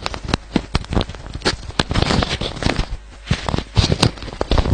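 Irregular run of knocks, clicks and rustles close to a microphone, the sort of handling and shuffling noise made as someone settles in at a desk, several sharp knocks among them.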